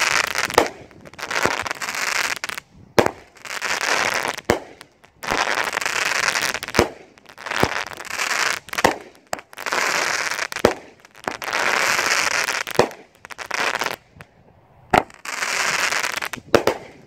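Winda 'Great Expectation' 9-shot 200-gram firework cake firing shot after shot, about one every two seconds. Each shot is a sharp bang followed by about a second of dense crackling as its stars burst.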